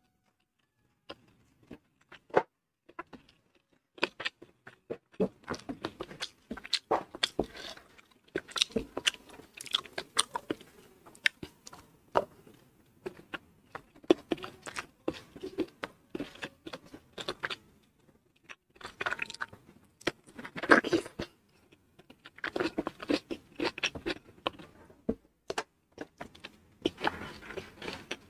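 Close-miked chewing and mouth sounds of someone eating a meal of rice with fried anchovies, tempe and peanuts: a few scattered wet clicks for the first few seconds, then a dense, irregular run of clicks and crunches.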